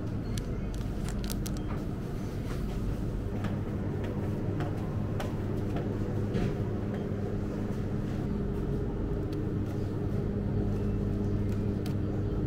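Steady low electrical hum of a convenience store's refrigerated display cases, with scattered light clicks and crinkles of plastic food packaging being handled.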